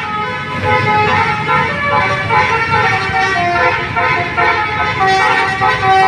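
Bus's Basuri 'telolet' multi-tone horn playing a melody, its notes stepping up and down about two or three times a second without a break.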